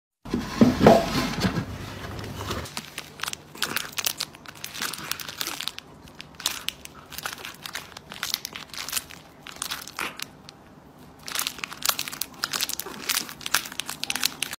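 Plastic treat pouch crinkling and crackling in irregular bursts as a cat bites and licks at it, after a brief loud pitched sound about a second in.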